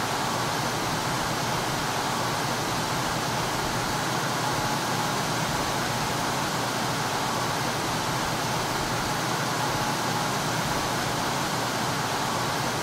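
Industrial room tone of a water processing facility: a steady, even noise that holds at one level without breaks or separate events.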